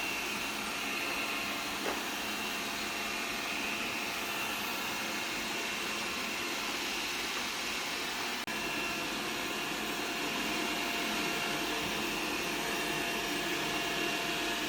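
Xiaomi robot vacuum running, a steady whir with a few held tones from its motor and fan. There is a brief click about two seconds in and a slight change in tone about eight seconds in.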